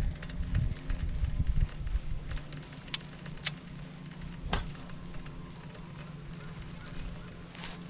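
Baitcasting reel being cranked through a retrieve, with wind rumbling on the microphone over the first couple of seconds, then a steady low hum and a few sharp ticks.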